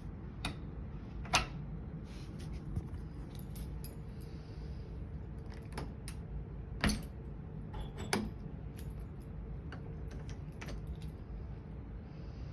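Keys jangling and a key working a door deadbolt: a series of sharp metallic clicks at irregular intervals, the loudest about a second and a half in and again near the middle.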